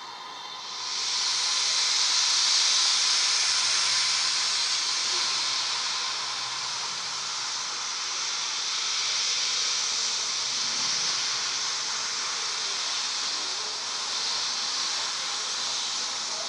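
Steady, loud hiss of steam escaping from a GWR 57xx Class pannier tank steam locomotive, starting about a second in.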